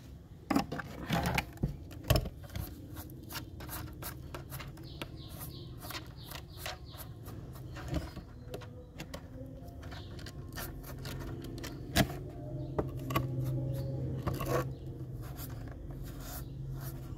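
Hard plastic parts of a toy remote-control excavator's track undercarriage and turntable being handled: irregular clicks, knocks and rubbing, with a few louder knocks in the first couple of seconds and one about two-thirds through. A low steady hum comes in about halfway.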